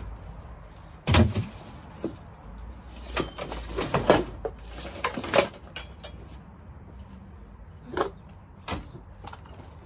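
Knocks and bangs of stored gear being shifted and set down: a loud bang about a second in, a run of knocks between about three and five and a half seconds, and two more near the end.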